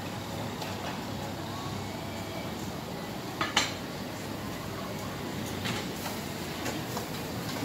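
Clatter of metal pots, bowls and utensils at a street-food stall over steady street noise, with one sharp clank about three and a half seconds in and a few lighter clinks near the end.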